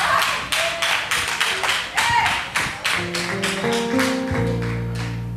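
Church music: sharp rhythmic claps, about four or five a second, with sustained keyboard chords coming in about three seconds in and a deep bass note joining near the end.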